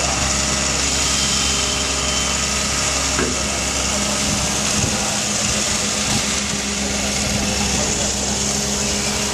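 Diesel engine of a Doosan amphibious excavator running steadily, with a steady hum added about four seconds in.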